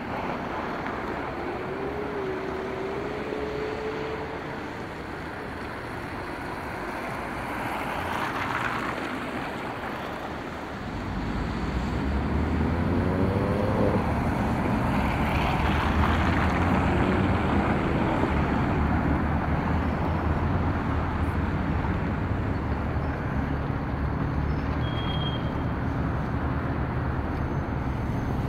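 Road traffic at a pedestrian crossing: cars driving past with their engines and tyres running. About a third of the way in, a louder, deeper engine hum sets in and stays.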